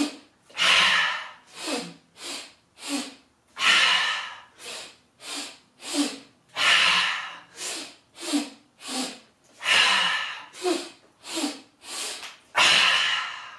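A woman's energizing breathing exercise: three short sniffs in through the nose followed by one long, big exhale through the mouth. The cycle repeats about every three seconds, four times over, with an exhale at the very start.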